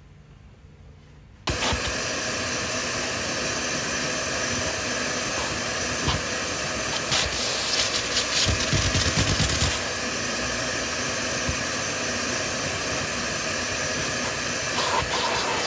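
Vacuum cleaner switching in about a second and a half in and running steadily as its nozzle is worked over a carpeted car floor mat, louder and rougher for a few seconds in the middle.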